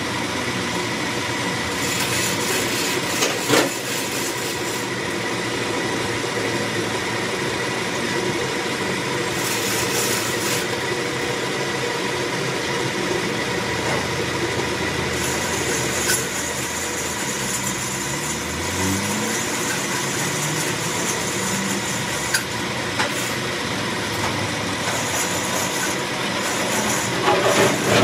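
Metal lathe running, its tool cutting a metal shaft held against the tailstock centre: a steady mechanical running noise with a faint steady whine. There are a couple of single knocks, and a rattling clatter near the end.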